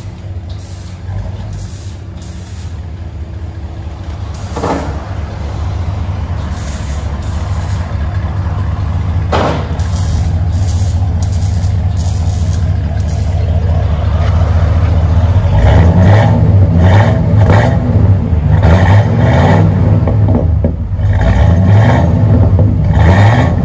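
1995 Ford Bronco's 5.0L V8 running through a dual exhaust with a Flowmaster Super 10 muffler and flat tips. It idles with a deep, steady rumble that grows louder, then is revved repeatedly in the second half, the exhaust note rising and falling with each blip.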